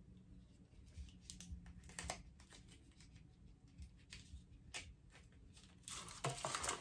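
Faint clicks and light taps of small cosmetic products and packaging being handled, with a denser paper-like rustle in the last second.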